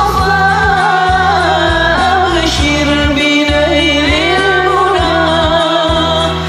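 Sholawat song: a singing voice carries a long, ornamented melodic line without clear words over backing music with a steady beat.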